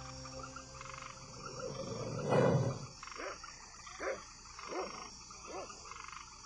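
Logo sound effects: a swelling whoosh peaks about two and a half seconds in, then four short swooping tones follow, each rising and falling, about one every three-quarters of a second.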